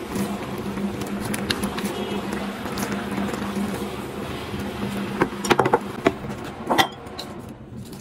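Broth simmering in a wok on an induction cooktop, with a steady low hum, while chopsticks stir the noodles. From about five seconds in there is a run of sharp clinks and knocks of chopsticks and the metal wok, and the simmering fades near the end.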